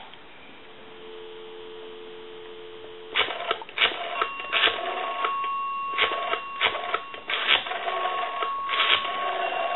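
Telephone dial tone on the line for about three seconds, then it cuts off as the Western Electric 202's rotary dial pulses out a number: bursts of clicking, one per digit, every half second to a second.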